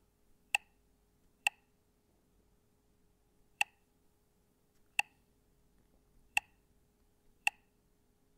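Six sharp clicks, spaced about one to two seconds apart, each a zoom-out step on the navigation map, over a faint steady hum.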